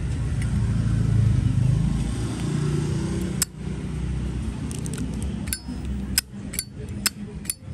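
A low engine rumble from a passing motor vehicle fades out about three seconds in. Then comes a run of sharp metallic clicks and clinks, about six in the last four seconds, as a Zippo lighter's metal case and insert are handled.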